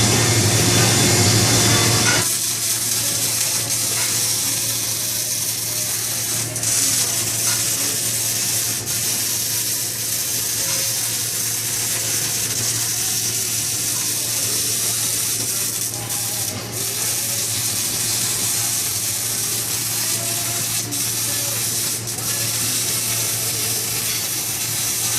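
MIG welding arc running a continuous bead, a steady crackling buzz with a hum underneath; the tone shifts slightly about two seconds in and then holds steady.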